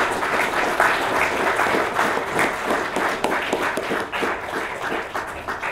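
Lecture audience applauding.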